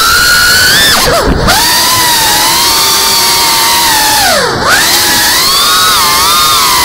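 FPV quadcopter's motors and propellers whining at a high pitch. The whine dives sharply as the motors slow, then spins back up, twice: about a second in and again about four and a half seconds in.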